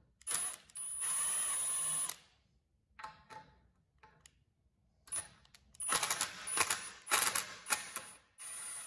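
Milwaukee cordless driver backing screws out of a whisker pole's cleat, the motor running in bursts with a high whine. One run lasts about two seconds near the start, then a string of shorter, rattling runs follows from about five seconds in.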